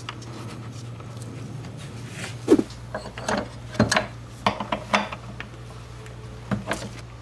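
A handful of sharp metallic clicks and knocks, starting about two and a half seconds in, as a drum-brake wheel cylinder is clamped in a steel bench vise and the rubber brake hose is tightened into it with an open-end wrench. A steady low hum runs underneath.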